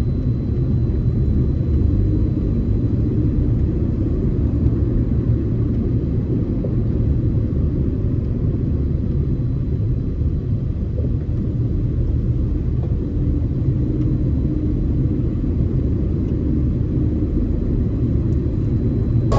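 Steady low rumble of a small Suzuki car heard from inside the cabin while driving: engine and road noise with no clear rise or fall.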